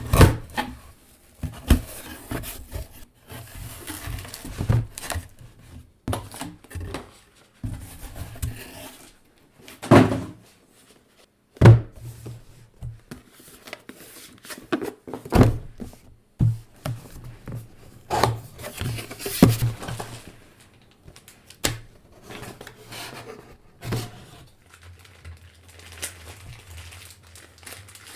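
Irregular knocks, thuds and rustling handling noises, with a few louder thuds spaced through it and a faint low hum near the end.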